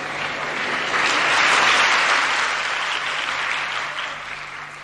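Audience clapping, swelling about a second in and dying away near the end.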